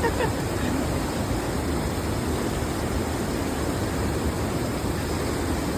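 Steady, even rushing noise that holds at one level throughout, with no distinct events.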